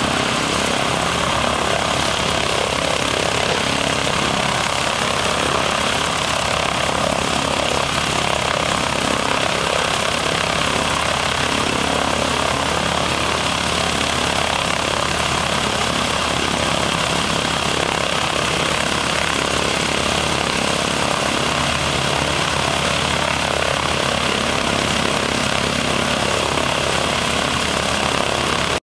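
North American Harvard's nine-cylinder Pratt & Whitney R-1340 radial engine idling steadily on the ground, propeller turning.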